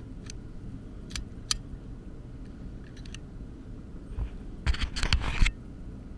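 A few scattered sharp clicks, then a short cluster of louder knocks and rustling about four and a half to five and a half seconds in.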